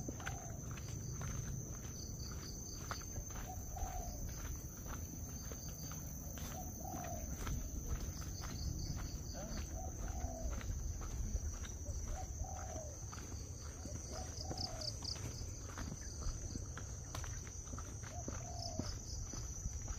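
Rural outdoor ambience: a steady high-pitched insect trill, with a bird giving a short call about every one and a half to two seconds and a few higher chirps. Light footsteps and a low rumble lie underneath.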